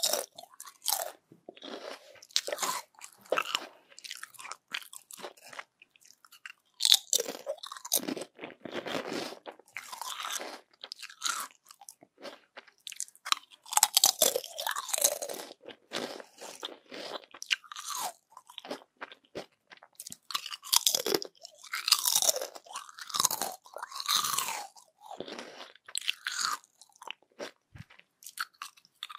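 Crispy yam chips being bitten and chewed up close: repeated sharp crackling crunches in clusters with short pauses between.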